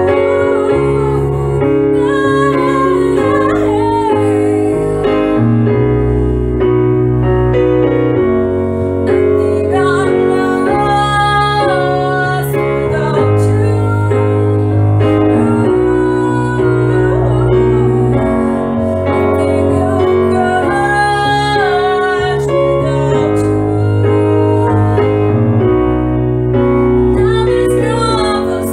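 A woman singing a slow ballad over piano accompaniment, holding long wavering notes while the low piano chords change every couple of seconds.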